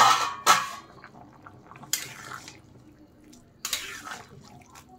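Metal spatula stirring a pan of simmering chickpea and paneer curry: several wet scraping strokes through the thin, bubbling gravy.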